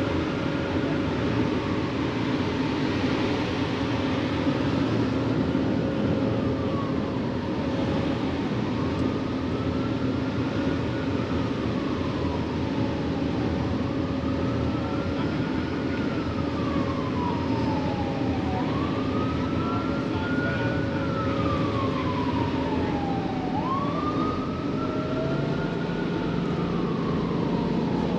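An emergency vehicle siren wailing, each cycle a quick rise and a slower fall, repeating about every four to five seconds. Beneath it runs the steady drone of the ferry's engines with the rush of wind and water on the open upper deck.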